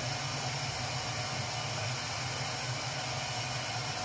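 Steady background room noise: an even hiss with a low hum underneath, unchanging throughout.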